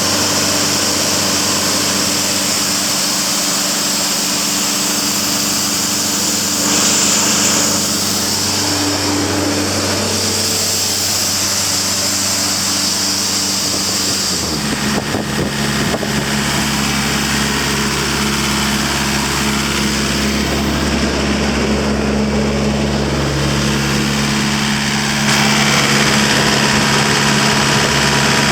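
Sullivan 185 towable air compressor's engine running steadily, dropping to a lower speed about halfway through. A strong hiss runs along with it and eases when the speed drops.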